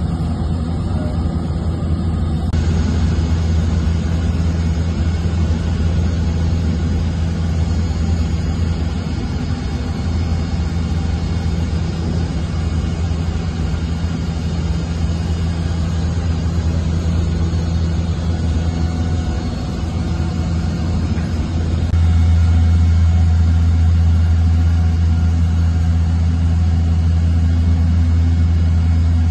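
Steady engine drone inside an aircraft cabin in flight: a constant low hum with noise above it. It grows louder about three-quarters of the way through.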